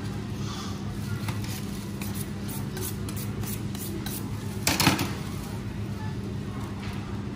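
Knife and utensils handled at a fish-cutting board: light clicks and scrapes, then one loud clatter a little under five seconds in, over a steady low hum.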